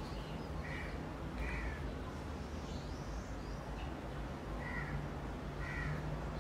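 A bird calling four times in short calls, in two pairs, over a steady low hum.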